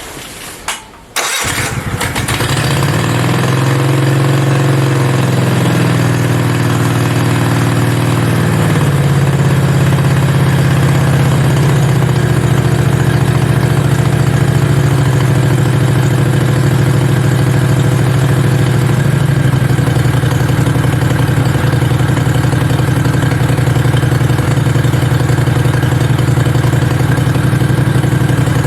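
Mini bike's V-twin engine catching about a second in, then running at a steady, fast idle after a few seconds of wavering speed. The idle is set too high.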